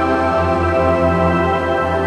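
Ambient background music: sustained, held tones over a low bass drone.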